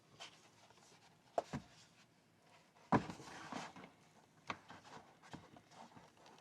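Faint, scattered clicks and knocks of a hard plastic and rubber tablet case being handled while a Surface Pro tablet is worked out of it. The loudest knock comes about three seconds in.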